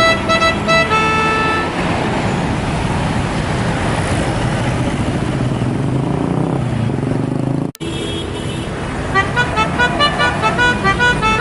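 Bus telolet horn, a multi-note air horn, playing a quick tune of changing notes for about two seconds. A bus engine and traffic noise follow. The sound breaks off for an instant just before eight seconds, and from about nine seconds the horn plays again in rapid short pulsed notes.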